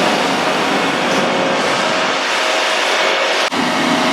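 A vehicle engine running steadily and loudly, with a faint steady whine in its sound and a momentary dropout about three and a half seconds in.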